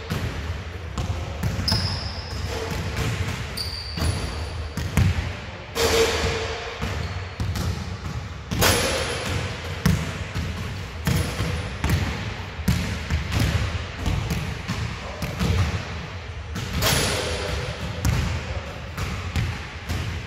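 Basketballs bouncing on an indoor court: irregular thuds throughout, with a couple of short, high squeaks that fit basketball shoes on the floor near the start.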